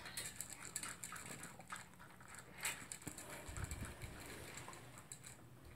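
Toy poodle eating from its food bowl: quiet, irregular clicks of eating, with a brief low rumble partway through.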